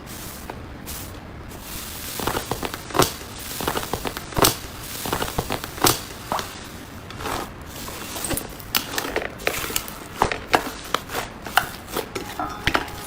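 Slime being squeezed and kneaded by hand, giving irregular sticky crackles and pops.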